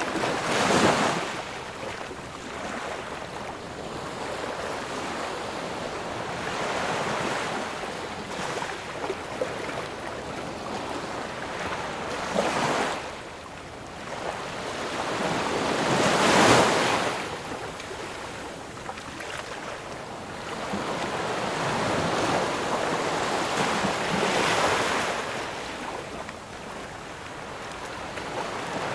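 Ocean waves breaking and washing up a shore, a steady rush of surf that swells and fades as each wave comes in. The loudest breaks come about a second in and about halfway through.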